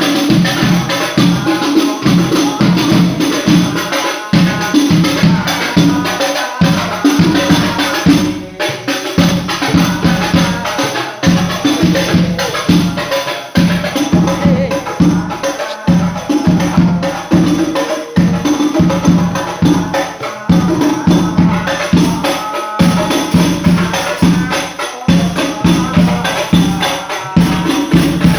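Rebana frame drums beating a dense, fast rhythm to accompany the singing of sholawat.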